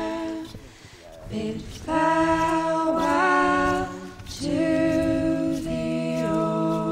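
Background music: an a cappella folk song, several voices singing in close harmony and holding long notes, with a short gap about a second in and another near the middle.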